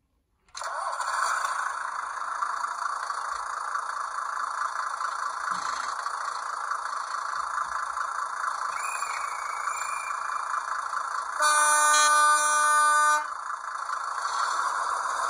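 Sound decoder in an H0 model of the BS300 rail-road bus playing a recording of the bus's Deutz diesel engine running, through the model's small built-in loudspeaker, so it sounds thin with little bass. The engine sound starts about half a second in. About eleven seconds in, a horn sounds for just under two seconds, the loudest part.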